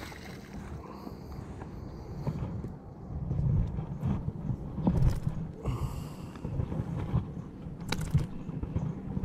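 Wind rumbling on the microphone, with a couple of sharp knocks as a small hooked fish is swung aboard and lands on the fiberglass boat deck, the last one near the end.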